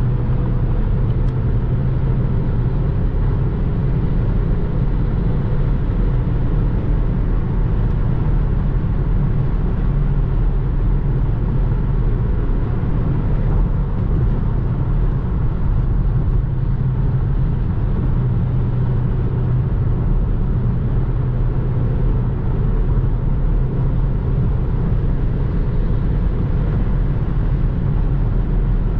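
Opel Astra J GTC's 1.6-litre turbocharged four-cylinder engine cruising steadily at about 140 km/h, heard from inside the cabin as a steady low drone mixed with tyre and wind noise.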